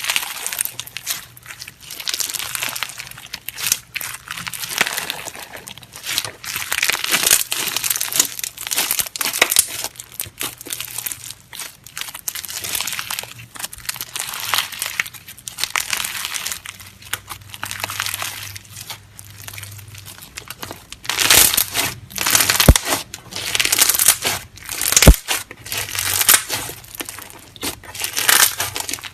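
Clear slime being squished and stretched by hand close to the microphone, giving dense crackling and clicking pops that come in waves, loudest a little past two-thirds of the way through, with two sharper snaps near the end.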